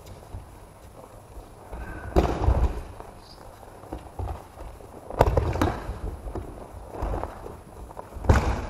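Bodies landing on the mat in aikido throws and breakfalls: three heavy thuds about three seconds apart, echoing in a large hall, with shuffling bare feet between them.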